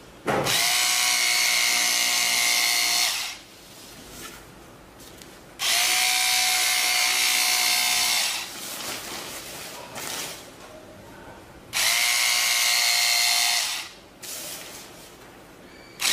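Handheld electric fabric cutter running in three bursts of two to three seconds each as it cuts through fabric: a steady high whine from its small motor that starts and stops abruptly, with short pauses of faint rustling between.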